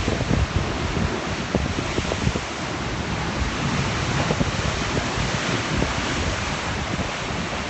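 Loud sea surf washing against the shore in a steady rush, with wind buffeting the phone's microphone in low rumbling gusts.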